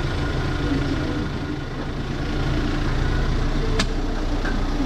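An engine idling steadily, with a single sharp click a little under four seconds in.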